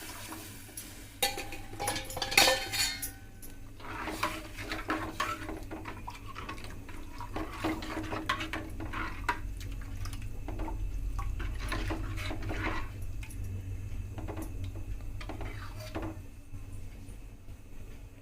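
Steel utensils clinking and a spoon scraping and stirring in a cooking pan as water is poured in, with one ringing clink a couple of seconds in, over a steady low hum.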